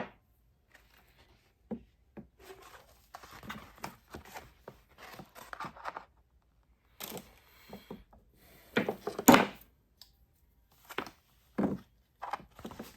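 Window film being cut and handled on a workbench: a series of short scraping and tearing strokes with plastic crinkling and a few knocks, the loudest cluster about nine seconds in.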